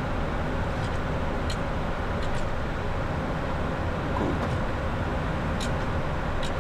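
Steady rushing flight-deck noise of a Boeing 737-800 in the climb, even throughout, with a few faint ticks.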